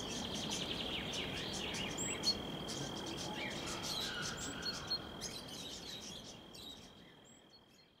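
Outdoor ambience: scattered short bird chirps over a steady, high-pitched insect drone, fading out about seven seconds in.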